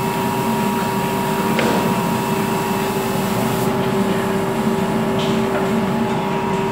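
Electric motor of a belt-driven clay forming (roller) machine running steadily: an even hum with a constant tone, and a short knock about a second and a half in.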